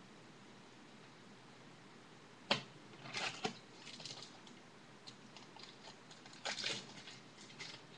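Trading cards and their packaging being handled: a sharp tap about two and a half seconds in, then short clicks and rustles around three seconds and again near six and a half seconds.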